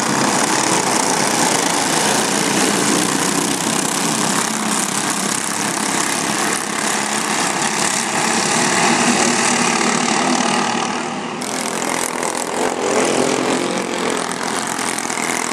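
Go-kart engine running under way, a continuous mechanical drone mixed with a steady rush of wind and track noise, easing slightly about two-thirds of the way in.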